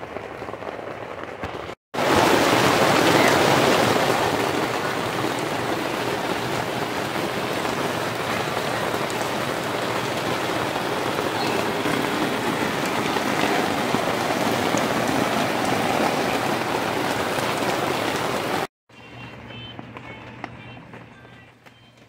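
Steady heavy rain falling, starting and stopping abruptly about two seconds in and a few seconds before the end, followed by a much quieter stretch.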